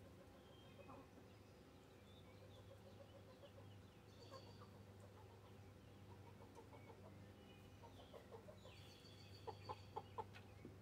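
Chickens clucking softly in short runs of low calls, with three sharper taps close together near the end.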